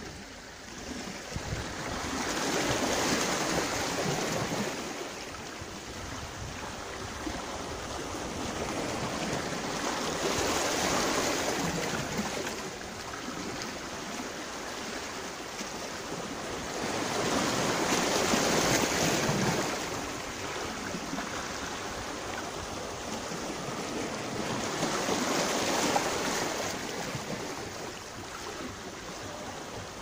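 Small sea waves washing up a sandy shore and drawing back, the rush of water swelling and fading four times, about every seven to eight seconds.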